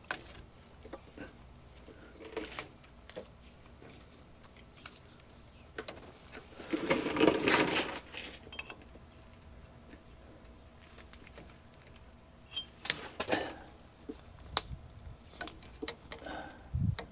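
Scattered clicks and metal clinks of hand tools and brake parts being handled while fitting the parking-brake hardware. About seven seconds in there is a louder rattling scrape lasting a second or so.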